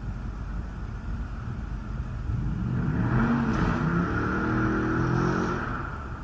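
A car drives past, its engine note shifting in pitch and its tyre noise rising and then fading over about three seconds, against steady gusty wind buffeting the microphone.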